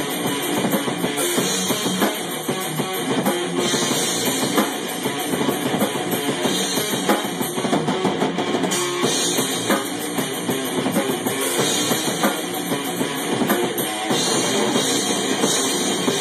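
Drum kit and electric guitar playing rock music together, with steady bass drum and cymbals under the guitar; the cymbals drop out briefly about eight seconds in.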